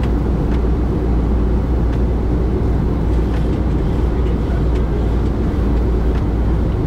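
Steady low rumble and rush of air in the flight deck of a Boeing 737-900ER on final approach, with a few faint clicks.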